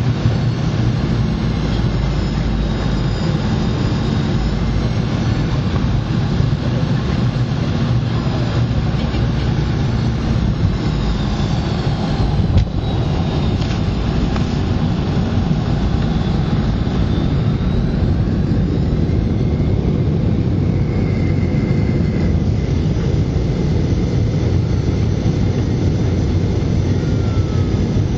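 Cabin noise inside a Boeing 717 on the ground after landing: a steady low rumble from its rear-mounted Rolls-Royce BR715 jet engines and the airframe, with a faint high whine that drifts up and down. A single brief knock about halfway through.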